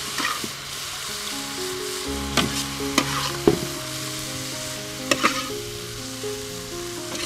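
Vegetables stir-frying in a stainless steel pan: a steady sizzle, with about five sharp clinks and scrapes of a metal ladle against the pan.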